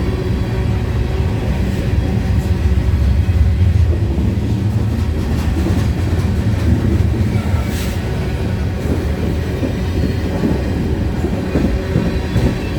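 CN freight train rolling past at close range: a steady low rumble of the cars with scattered wheel clicks over the rail joints.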